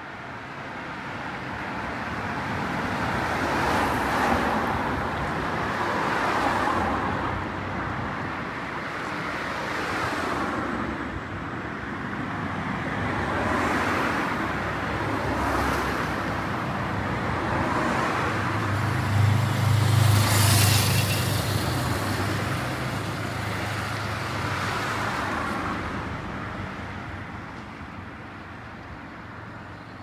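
Road traffic passing: cars going by one after another in rising and falling swells of tyre and engine noise. A low engine hum stands out about two-thirds of the way through.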